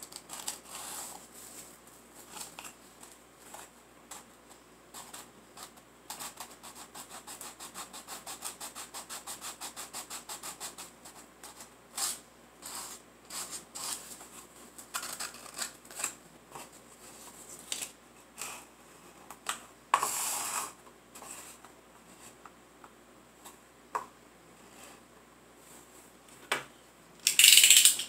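Small wooden dollhouse piece being sanded by hand with sandpaper: a run of quick back-and-forth rubbing strokes, then scattered short scrapes, the loudest just before the end.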